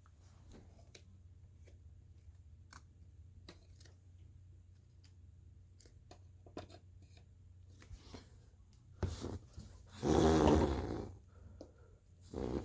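Faint scattered clicks and handling noises over a steady low hum. About ten seconds in comes a louder pitched sound lasting about a second.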